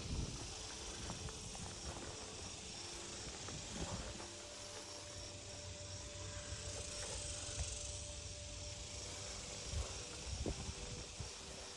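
Insects in the summer grass keep up a steady high hiss with a faint regular pulse, over a low rumble of wind on the microphone.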